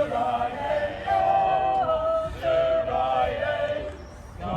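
A sea shanty sung unaccompanied by a group of singers, with long held notes.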